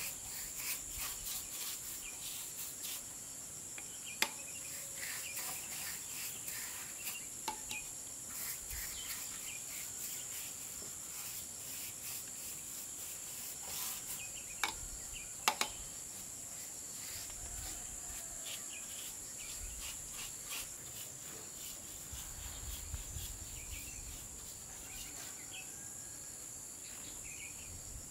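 Steady, high-pitched chorus of insects, with a few sharp knocks scattered through it, two of them close together about halfway through.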